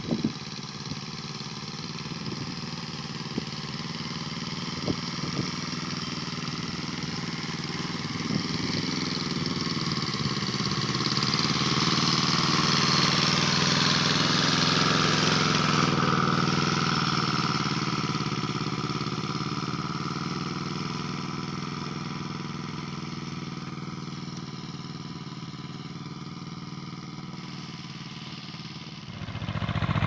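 Small engine of a walk-behind farm machine running steadily as it works the field, growing louder as it passes close about halfway through, then fading as it moves away.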